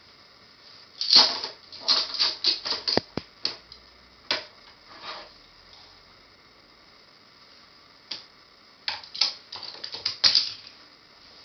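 Small toy cars clicking and clattering on a plastic multi-level toy garage as they are handled: bursts of sharp plastic clicks and knocks, a busy run from about a second in and another near the end, with a few single clicks between.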